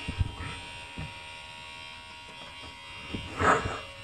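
Cordless electric hair trimmer running with a steady buzz, with dull knocks as it is handled and pawed at. About three and a half seconds in, a short loud burst of noise stands out over the buzz.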